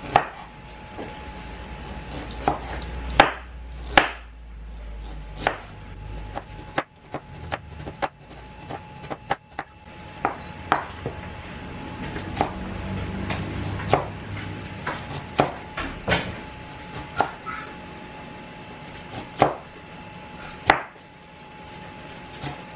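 A large kitchen knife slicing fresh ginger on a bamboo cutting board. The blade knocks sharply on the board at an irregular pace, with short pauses between slices.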